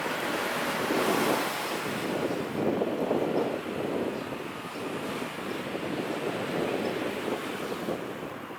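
Jet airliner engines heard as a steady, surging rush of noise with no distinct tones.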